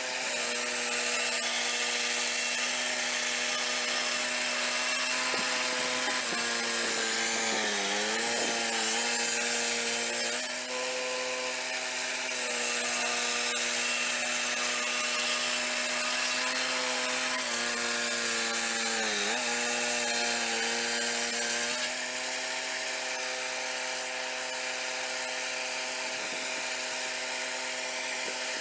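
The 13-horsepower engine of a swing-blade portable sawmill running at speed while its circular blade saws through a log, with a steady hiss from the cut. Twice, about eight seconds in and again around nineteen seconds, the engine note sags briefly under load and recovers; it runs a little quieter near the end.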